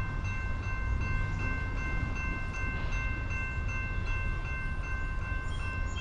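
Grade-crossing warning bell starting up and ringing steadily with rapid repeated strikes, the signal that a train is approaching the crossing. A steady low rumble lies underneath.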